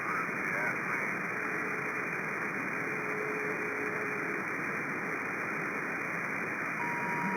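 CB radio receiver on single-sideband, channel 37, passing steady static hiss between transmissions. Thin steady whistles drift in twice, the second near the end, with faint garbled sideband voices underneath.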